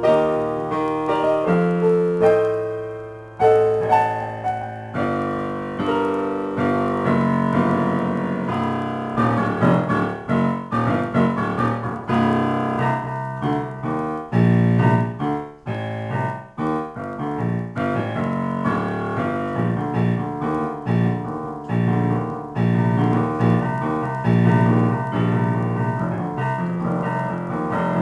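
Yamaha digital piano played in a free improvisation: a steady flow of chords over a low bass line. About three seconds in, a held chord fades away briefly before the playing picks up again.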